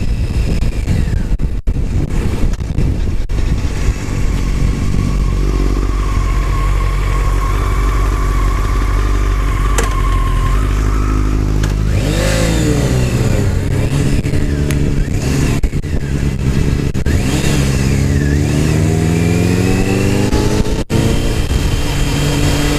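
Sport motorcycle ridden in city traffic, with heavy wind rumble on the helmet microphone. About halfway through, the bike's engine accelerates and rises in pitch, drops at a gear change, then rises again.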